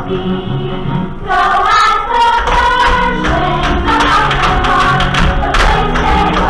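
A cast of children singing together in a musical number with instrumental accompaniment. A deep bass part comes in about two and a half seconds in, under a steady beat.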